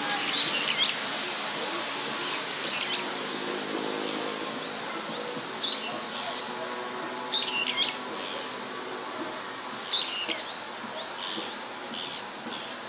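Japanese pygmy woodpecker calling: short, high, squeaky calls repeated in irregular bursts, some in quick pairs or runs.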